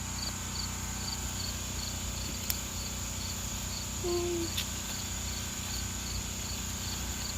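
Crickets chirping: a steady high trill with a regular chirp repeating about three times a second.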